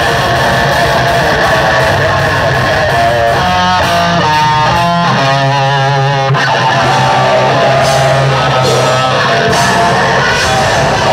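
Black metal band playing live and loud: electric guitar and bass guitar over drums, in a dense, steady wall of sound. In the middle, a run of distinct single notes stepping up and down in pitch stands out for a few seconds before the full dense sound returns.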